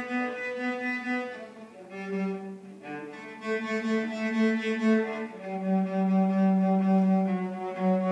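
Solo cello played with the bow: a slow melody of long, held notes, with a softer passage about two seconds in.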